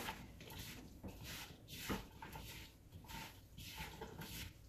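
Two silicone spatulas tossing oily, spice-coated sliced onion in a plastic mixing bowl: faint, irregular wet squishing and scraping.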